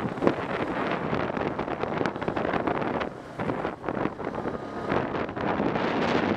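Wind buffeting the microphone of a camera on a moving ATV, an uneven rushing noise that dips briefly about halfway through, with the quad's engine running underneath.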